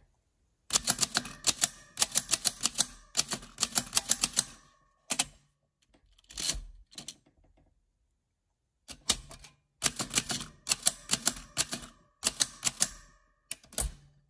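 Typewriter typing: runs of rapid keystrokes, a pause in the middle with a few scattered strokes, then more runs, ending with one heavier clack.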